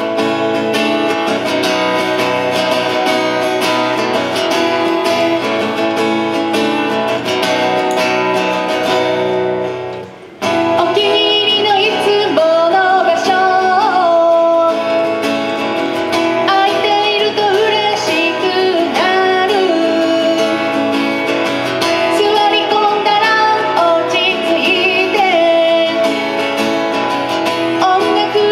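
A woman singing to her own strummed acoustic guitar: about ten seconds of guitar intro, a brief pause, then the sung verse over the strumming.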